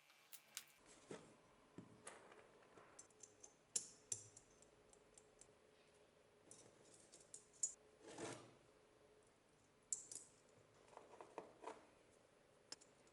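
Faint, scattered clicks and light knocks, with a short scrape about eight seconds in, as small tool parts are handled.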